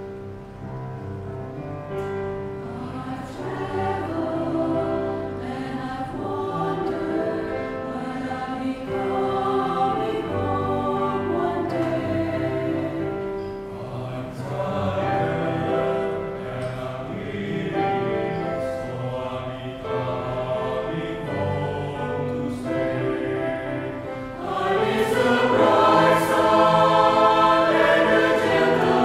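Mixed choir of men and women singing a choral song with piano accompaniment, swelling louder near the end.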